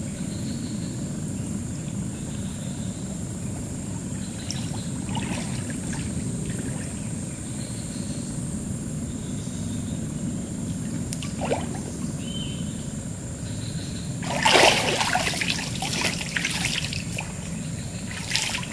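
Water trickling and splashing around a man bathing waist-deep in a swampy river, with a burst of louder splashing a few seconds before the end.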